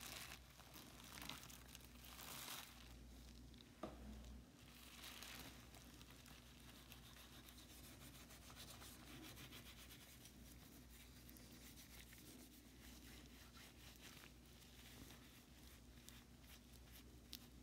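Faint crinkling and rustling of a plastic bag as gloved hands unwrap hand plane parts, with a few louder rustles in the first few seconds and a sharp click about four seconds in.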